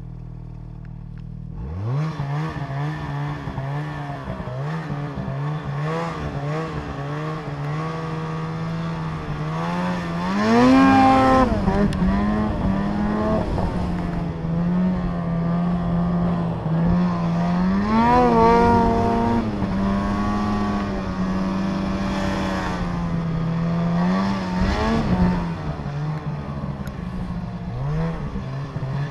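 Snowmobile engine running under changing throttle. It idles at first, picks up about two seconds in, and its pitch rises and falls as the rider works the throttle, with three sharp revving surges along the way.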